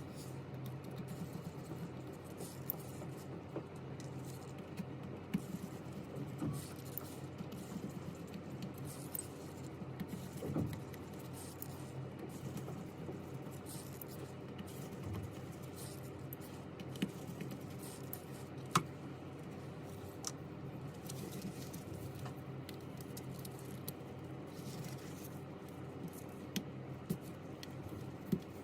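Small clicks and taps from tools and parts being handled during a phone repair, coming irregularly over a steady low hum. The sharpest clicks come about five, ten, seventeen and nineteen seconds in.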